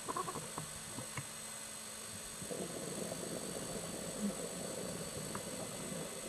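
Scuba diver's exhaled bubbles from the regulator rumbling underwater for about three and a half seconds, starting about two and a half seconds in, after a few faint clicks.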